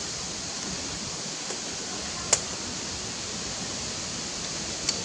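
Steady outdoor background hiss. A single sharp click comes a little over two seconds in, and a fainter click comes near the end.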